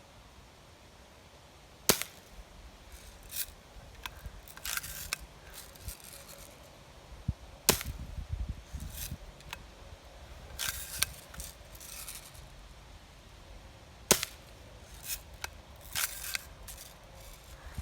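BB gun firing three sharp shots about six seconds apart, with quieter clicks and rattles of the gun being handled between shots.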